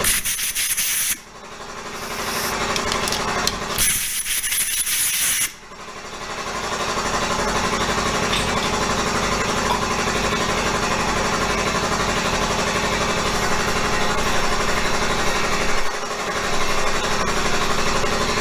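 A handheld power tool running. It cuts out briefly twice in the first six seconds, picking up again each time, then runs steadily with a constant hum.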